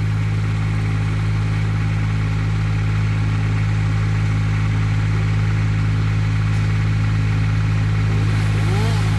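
Engine of heavy tree-removal machinery running at a steady speed: a constant low hum with no change in pitch.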